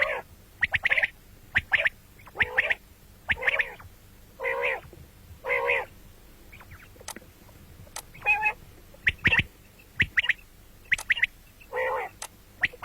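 Common quail calling over and over: quick, clipped high notes, often in pairs or threes, alternating with longer, lower nasal calls about every second.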